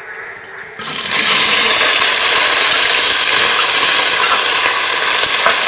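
Hot oil sizzling loudly and steadily in an iron wok as chicken wings fry. The sizzling starts suddenly about a second in.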